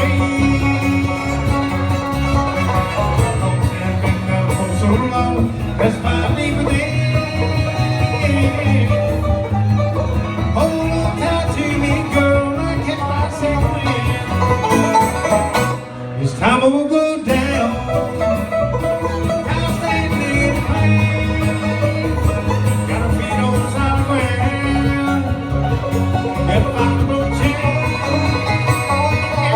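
Live bluegrass band playing an instrumental passage, with banjo and guitar picking. The music dips briefly about halfway through, then carries on.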